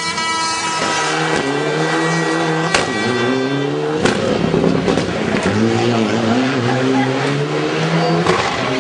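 Rally car engine at high revs as the car passes, its note dropping in pitch about a second in, then rising and falling repeatedly as it accelerates away through the gears. Two sharp cracks about three and four seconds in.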